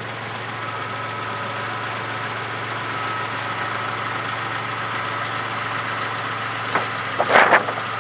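Engine of a fork-equipped machine idling steadily, with a brief clatter of knocks about seven seconds in.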